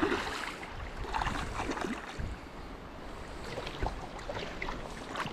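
Steady rush of a mountain river's flowing water, with wind buffeting the microphone.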